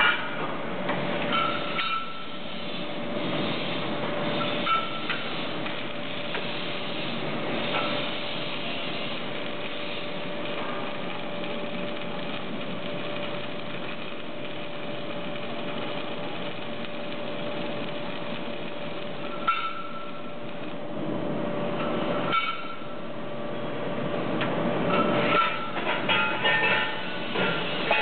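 Two arc-welding torches of an automatic prop-tube welding machine welding both ends of a steel prop tube at once: a steady welding hiss with a steady hum underneath. Metal clanks and knocks from the machine's clamps and rolling tubes come near the start, a few times in the middle, and in a cluster near the end as the tubes are moved on.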